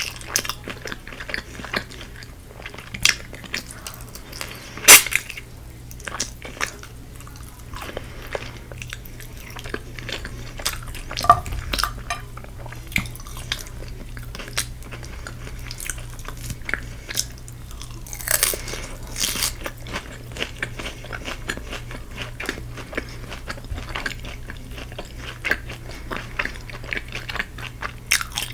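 Crisp crunching and chewing of Korean fried chicken, close to the microphone: a steady run of small crackles broken by louder crunchy bites, the loudest about five seconds in and again just after the middle.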